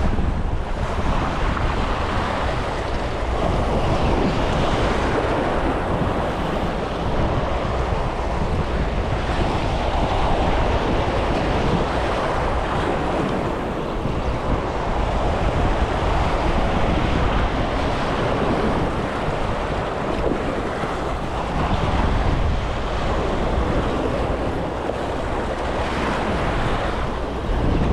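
Steady wind buffeting the microphone over surf washing against the jetty.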